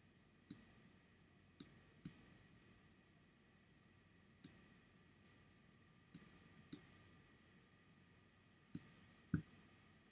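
Computer mouse clicking, about eight single sharp clicks at uneven intervals, the last one, near the end, the loudest with a low knock.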